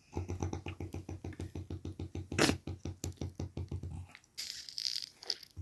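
A person snoring: a rapid fluttering rattle of about seven or eight pulses a second lasting some four seconds, with a louder snort about halfway through, then a breathy hiss about a second long.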